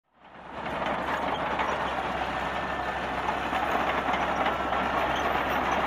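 Excavator diesel engine running steadily, fading in about a third of a second in.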